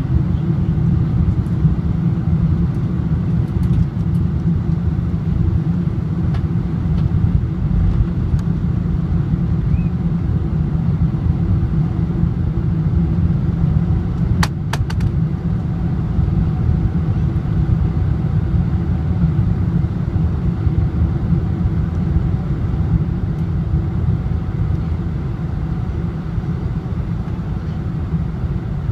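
Boeing 747-400 cabin noise during the descent to land: a steady low rumble of engines and airflow heard from inside the cabin. A couple of short sharp clicks sound about halfway through.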